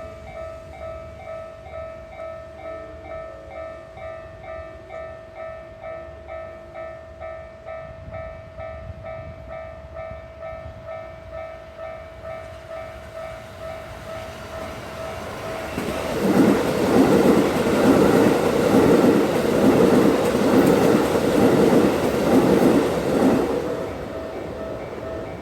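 Japanese railroad crossing's electronic warning bell ringing about twice a second. About 16 seconds in, a Keikyu train passes over the crossing, its wheels clacking rhythmically over the rail joints and drowning out the bell for about eight seconds. The bell then carries on ringing.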